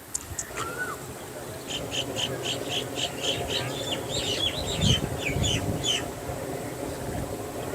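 A songbird calling a rapid string of short, high chirps, about three or four a second, turning into quicker falling notes before stopping about six seconds in. A brief low rumble sounds about five seconds in.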